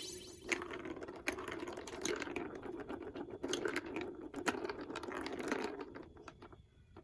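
Marbles rolling and clattering through a plastic building-block marble run track, a busy stream of small clicks and rattles that stops about six seconds in. A ringing sound from just before fades out in the first half second.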